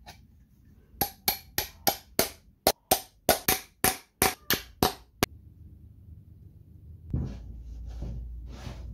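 A quick run of about fifteen sharp taps, three or four a second, that stops after about five seconds. Near the end a low rumble sets in with a few dull knocks.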